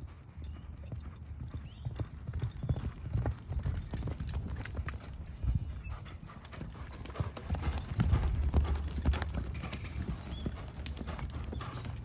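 A horse's hooves beating on soft arena dirt as it gallops, stops hard and turns, in quick, uneven hoofbeats that are loudest about two-thirds of the way through.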